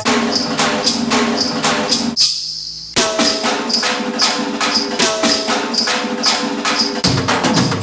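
Indian percussion music samples: a rhythmic loop of drum strokes and evenly spaced jingling strikes over held pitched notes. It fades out about two seconds in, a new loop starts sharply about a second later, and the pattern changes abruptly again near the end.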